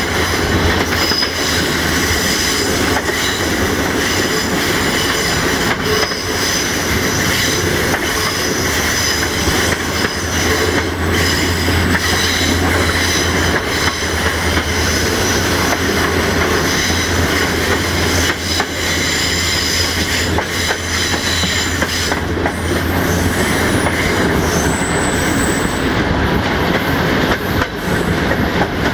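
Passenger coach steel wheels squealing against the rails on a curve, a steady high whistle that dies away about 22 seconds in as the track straightens. Under it, the steady rumble of the train running and the clickety-clack of the wheels over rail joints.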